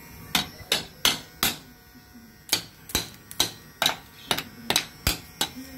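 A run of sharp slaps or taps, about two or three a second, with a short pause about a second and a half in. Under them, the faint steady hum of an electric hair clipper.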